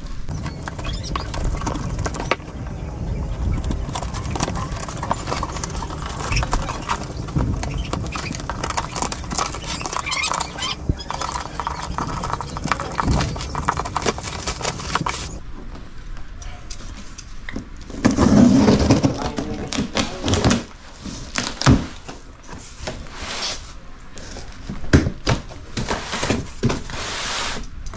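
Packaging being unwrapped by hand: plastic wrap crackling and tearing, and a cardboard box being handled and opened, with scattered knocks and rustles. The crackling runs dense for about the first half, then gives way to separate rips, rustles and knocks, with a louder burst of tearing about two-thirds of the way in.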